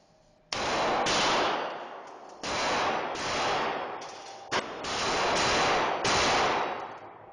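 Glock 22 pistol firing .40 S&W rounds: a string of shots at irregular intervals, two of them almost together about four and a half seconds in. Each shot has a long reverberating tail from the indoor range.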